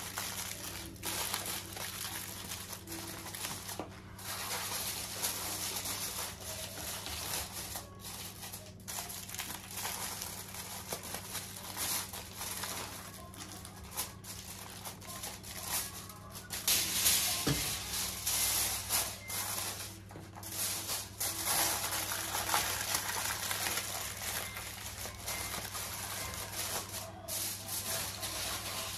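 Aluminium foil crinkling and rustling as it is pressed and folded around the edges of a roasting tray, with uneven loudness throughout, over a steady low hum.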